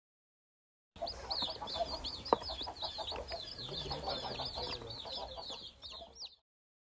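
A group of chicks peeping continuously, many short high-pitched cheeps a second overlapping, with one sharp click about a second after they start. The peeping starts suddenly about a second in and cuts off suddenly near the end.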